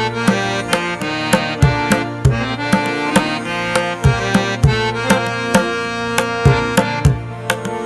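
Background instrumental music with tabla-like hand-drum strokes over sustained melodic notes, at a steady beat.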